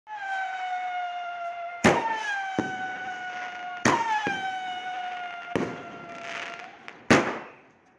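Multi-shot fireworks cake firing from boxes on the ground: a sharp bang about every two seconds, each followed by a long whistle that slowly falls in pitch. Smaller pops come between the shots.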